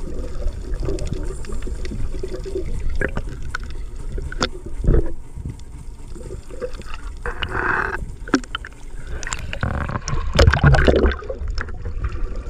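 Water sloshing and gurgling around an underwater camera near the sea surface, with scattered knocks and clicks of the camera being handled. A hissing burst of splashing and bubbles comes about seven seconds in, and a louder, heavier one a few seconds later.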